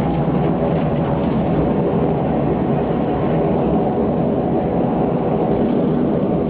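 Passenger aircraft's engines running steadily, heard from inside the cabin while the plane taxis on the ground, a loud even drone with steady tones over a low rumble.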